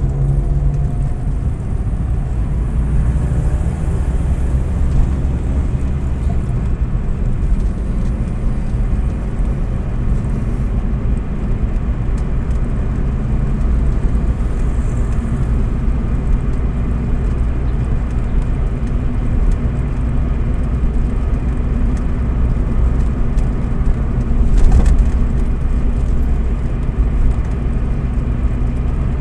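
Car engine and road noise heard from inside the cabin while driving: a steady low rumble, with one brief thump shortly before the end.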